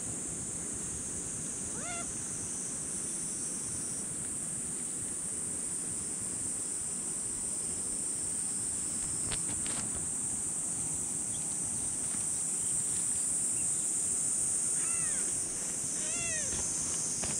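Kitten meowing: a short meow about two seconds in and two more near the end, each rising then falling in pitch, over a steady high-pitched hiss.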